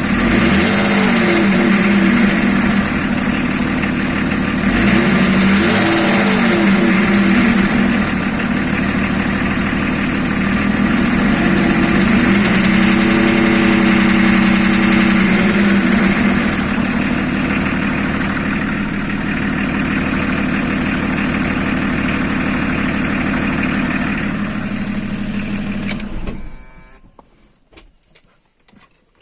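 BMW E34's engine running at idle and blipped a few times, then switched off near the end, followed by a few light clicks. The owner says the engine is knocking.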